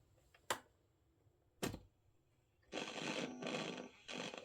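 Two sharp clicks of the controls on a vintage Philips 3-band radio cassette recorder being switched, then the radio's speaker hissing with static for about a second and a half while it is tried for the first time.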